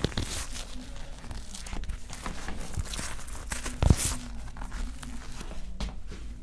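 Rustling and crinkling of a body shifting on a chiropractic treatment table, with small clicks throughout and a single thump about four seconds in.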